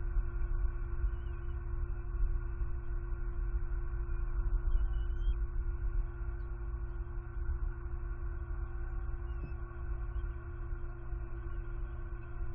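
Uneven low rumble of wind buffeting the nest camera's microphone, under a steady hum that holds a few fixed tones.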